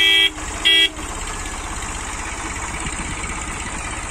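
A vehicle horn sounds twice: a long blast that ends just after the start and a short toot about half a second later. Under it, an Eicher tractor's diesel engine runs steadily with a low, even pulse.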